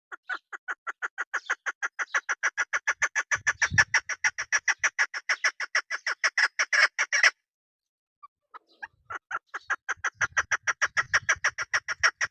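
Female chukar partridge calling: a rapid, even series of clucking notes, about six a second, for some seven seconds. After a pause of about a second the series starts again faintly and builds up louder.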